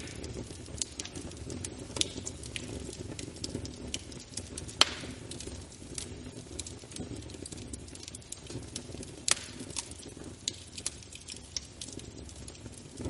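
Wood fire burning in a fireplace: a steady low rush of flame with scattered crackles and pops, two sharper pops about five and nine seconds in.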